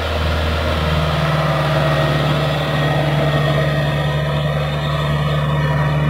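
Kubota rice combine harvester's diesel engine running with a steady drone.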